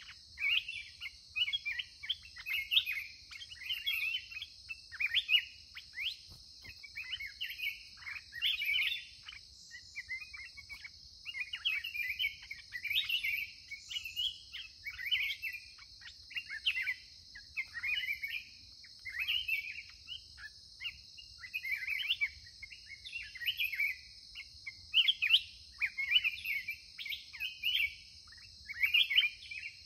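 Black-crested bulbuls singing: short, varied whistled phrases repeating about once a second, over a steady high hiss.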